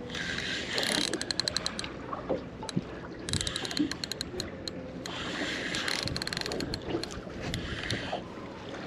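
Fishing reel's drag clicking in several quick bursts as a hooked fish, thought to be a bass or big pollock, pulls line off against it.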